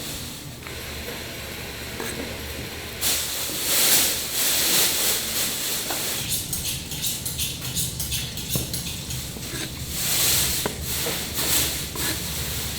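Steady hissing and sizzling of food cooking on a grill, swelling louder about three seconds in and again in the middle, with a few sharp clicks.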